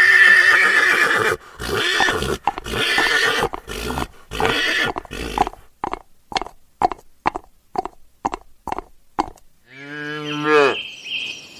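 A horse whinnying in long, harsh calls, then a run of short, quick sounds about two or three a second. Near the end comes a single low call.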